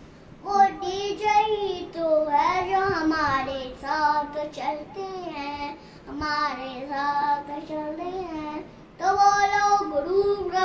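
A young boy singing a song solo, in phrases with short breaks between them.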